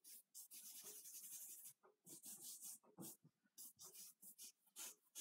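Charcoal scratching across drawing paper in quick, uneven strokes: one longer stroke of about a second near the start, then a run of short ones.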